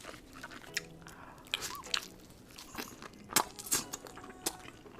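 Crunchy food being bitten and chewed close to the microphone, a string of irregular sharp crunches with the loudest about three and a half seconds in.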